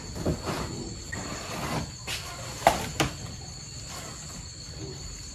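Insects droning with a steady, high-pitched double tone, broken by a few sharp knocks and some rustling; the loudest knock comes about two and a half seconds in.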